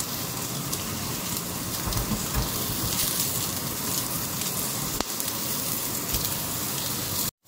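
Beef steak sizzling steadily on a hot ridged grill pan as its first side sears, with a few faint spits; the sound cuts out for a moment at the very end.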